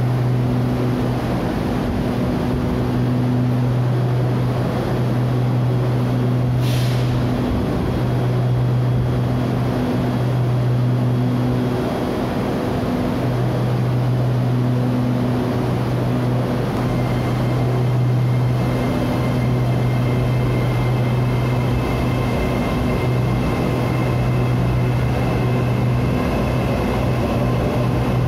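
Steady low hum of an SRT Red Line electric commuter train standing at the platform, its onboard equipment running and dropping out briefly now and then. A sharp click about a quarter of the way in, and faint high steady tones come in past the halfway point.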